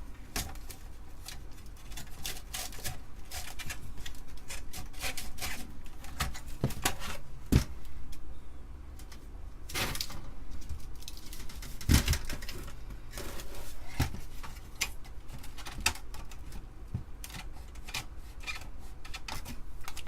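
Plastic and metal parts of an Amiga 500 being handled and pried at during disassembly: a steady run of small clicks, taps and rubs, with louder knocks about eight seconds in and again about twelve seconds in.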